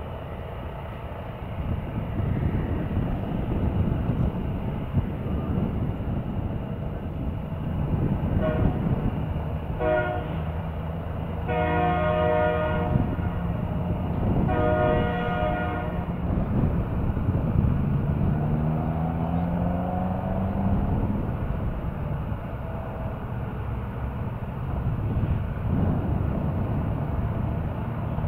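Steady low rumble from a Boeing 777-300ER airliner and its tow tug during pushback. In the middle a chorded horn sounds four times, the last two blasts longest, and a little later a tone rises in pitch for a few seconds.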